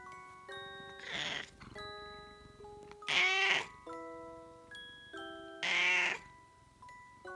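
A cat meowing three times, about a second and a half apart, the middle call the loudest, over soft chiming background music.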